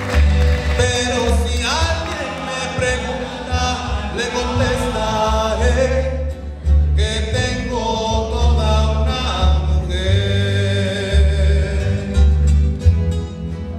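Live rondalla music: a large ensemble of acoustic guitars and a plucked double bass playing a slow ballad, with men's voices singing over it.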